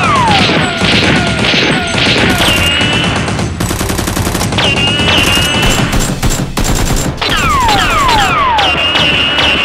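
Sci-fi laser blaster sound effects in rapid volleys: quick zaps that each fall in pitch, mixed with dense gunfire-like bangs and a few short held high whines.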